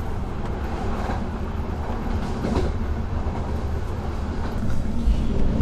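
Sleeper train carriage running along the track, heard from inside a sleeping cabin: a steady low rumble of the wheels and car body.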